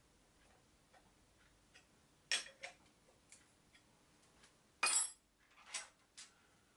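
Sharp metal clinks of a hex key and steel parts being handled against a milling machine's cast-iron tilting table, the loudest a little over two seconds in and about five seconds in, with faint light ticks between.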